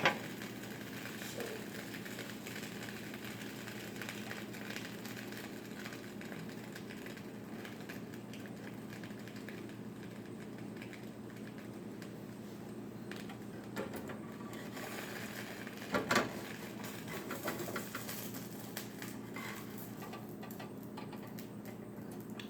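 A grilled cheese sandwich frying in butter in a non-stick pan: a steady fine sizzling crackle, over a low steady hum, with a couple of brief knocks about two-thirds of the way through.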